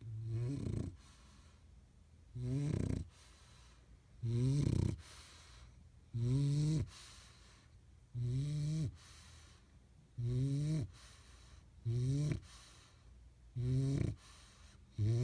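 Steady, rhythmic snoring: a loud snore about every two seconds, each one rising in pitch as it ends, with quiet breathing between.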